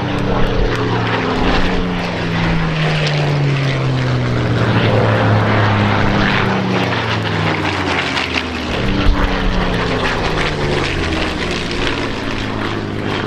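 Mark IX Spitfire's Rolls-Royce Merlin V12 engine running loud in a low pass, its pitch falling steadily through the middle of the pass as it goes by, then running steadier.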